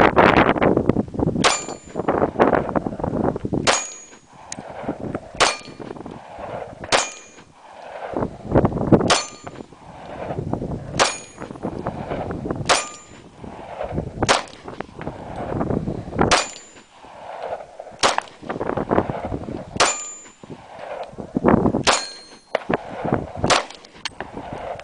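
Glock 23 .40 S&W pistol fired in slow aimed shots, about thirteen, one every one and a half to two seconds. Each shot is followed by a metallic ring from steel targets being hit.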